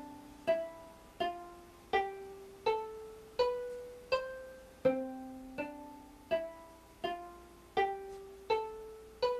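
Electronic instrument playing a pre-recorded C major scale from the M computer music software: evenly spaced notes, about one and a half a second, each starting sharply and dying away. The pitch climbs note by note, then drops back about five seconds in and climbs again.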